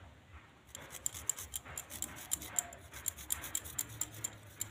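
Garlic cloves rubbed against a flat metal hand grater: a soft rasping scrape, repeated about twice a second.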